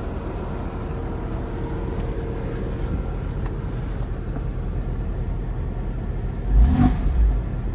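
Porsche 996's flat-six engine idling with a steady low rumble, then briefly revved about six and a half seconds in before settling back. It is recorded as an engine making an abnormal noise.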